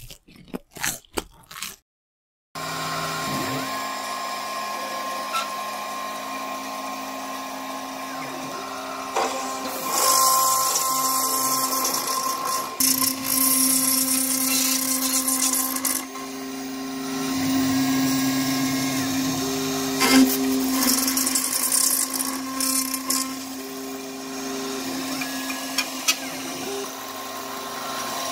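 A few short noises over the opening title, then a homemade CNC router running: its spindle turns a 1/4" solid carbide upcut O-flute end mill, milling a groove in a 3form Chroma resin panel. The spindle holds a steady tone, with a cutting hiss, while shorter motor tones start and stop at different pitches as the axes move.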